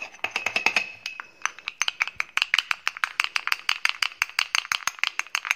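Wooden spoon stirring quickly in a small glass jar, clicking against the glass in a rapid run of clicks, several a second, as coconut oil and aloe vera gel are mixed together.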